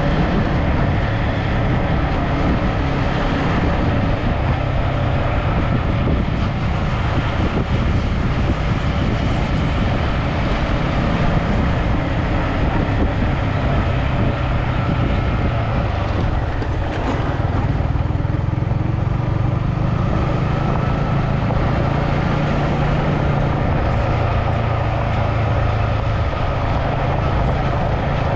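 A vehicle's engine running steadily on the move, with a low hum under a constant rush of road and wind noise.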